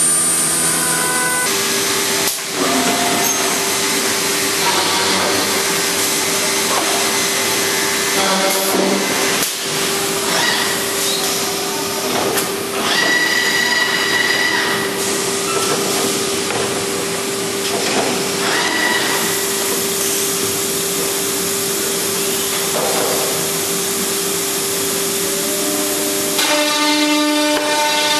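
Woodworking machine running: a steady whine held for most of the stretch over a loud, even hiss, which stops near the end.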